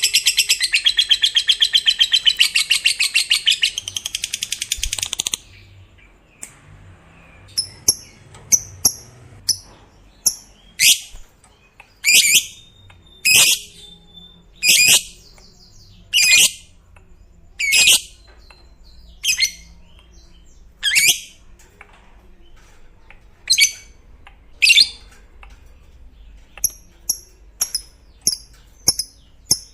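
Lovebird's long, very fast chattering trill (ngekek), which stops about five seconds in. It is followed by single shrill calls about every one and a half seconds and, near the end, quick runs of short high chirps.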